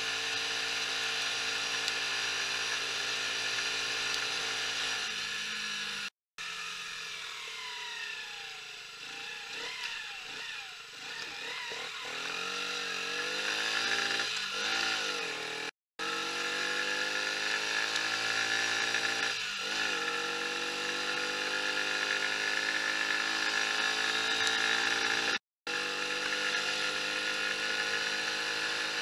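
Mash Fifty's 50 cc four-stroke single-cylinder engine heard from the rider's seat while riding. It runs steadily at first, then drops and wavers in pitch as the bike slows, and climbs steadily in pitch as it accelerates again over the second half. The sound cuts out briefly three times.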